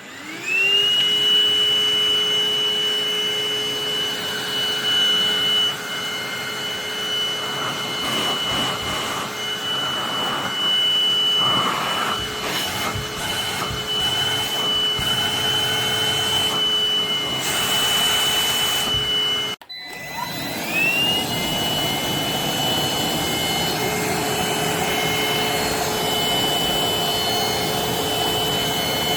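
Anktel cordless handheld vacuum cleaner switched on, its motor spinning up with a rising whine and then running at a steady high pitch. Scattered crackling in the middle. It cuts off abruptly about two-thirds of the way through, then is switched straight back on and spins up again.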